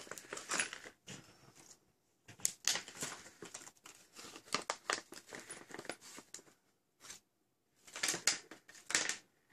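Small clear plastic parts bag crinkling and rustling as it is handled and opened, in irregular bursts with a couple of short pauses.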